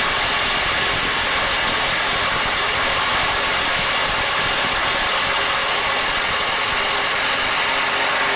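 Kobalt KIW 124B-03 24V brushless mid-torque impact wrench in mode 3, hammering steadily without a break on a nut torqued to 1,000 ft-lbs as it works to break it loose.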